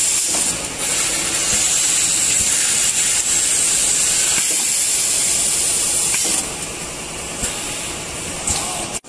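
Steady loud hiss of compressed air at a pneumatic piston liquid filling machine, easing to a quieter hiss about six seconds in, with two light clicks near the end.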